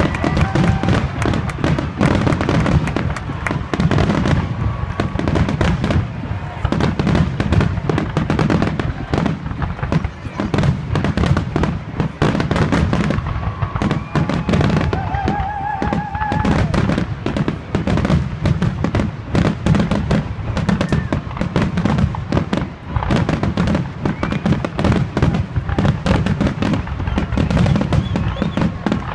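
Fireworks display in a dense, continuous barrage: rapid overlapping booms and crackling reports with no pause.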